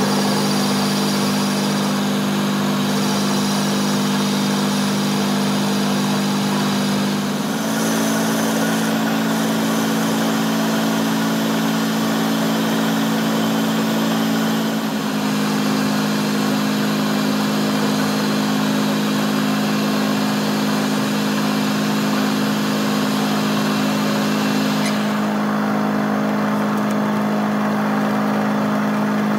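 Metal lathe running with a steady motor hum and hiss, its pitch stepping slightly twice. Near the end the higher hiss falls away while the hum carries on.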